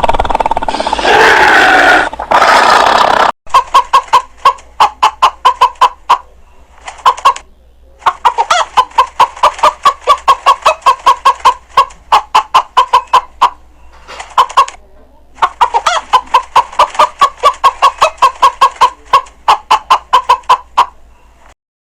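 Chicken clucking in quick, regular runs of sharp clucks, several a second, with short pauses between the runs. Before that, for about the first three seconds, another loud, noisy sound plays and cuts off suddenly.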